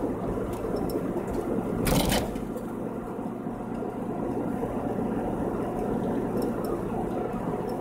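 Steady road noise inside a moving car, the hum of tyres and engine while cruising, with a brief louder rush about two seconds in.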